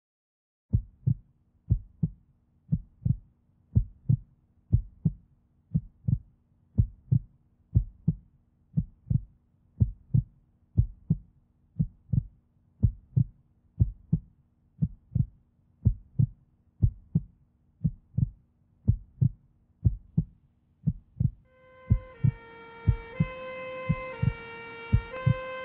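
Heartbeat sound, a steady, slow run of paired low thumps. About 22 s in, held tones that step in pitch, like a synth melody, join it.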